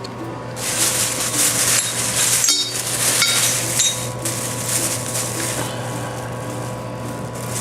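New metal pipes and fittings clinking and rattling as they are handled, with a few short ringing clinks a few seconds in. A steady low hum runs underneath.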